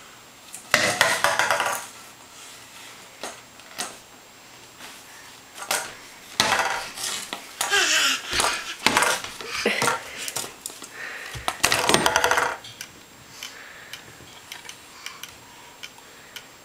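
A toddler's noise-making toy tube sounding in several short bursts, with single knocks and clicks in between.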